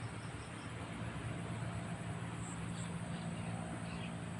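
Steady low drone of a distant motor running, with a faint high steady whine above it.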